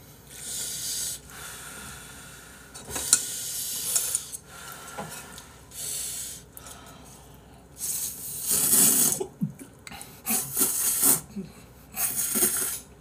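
A person slurping noodles in a run of about seven short, hissy slurps, the longest and loudest a little past the middle.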